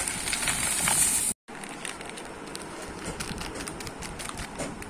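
Whole garam masala spices (black pepper, cumin, bay leaves, cloves) poured from a plastic packet into a plastic tub: a hissing rattle of small seeds for the first second or so that breaks off abruptly. After that come scattered light crackles of the plastic packet being handled.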